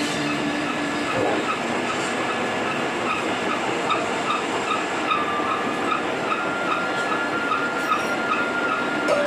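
Large cutting machine working a steel slewing bearing ring: a steady rushing, clattering machining noise, with a faint regular chirp a little over twice a second through most of it.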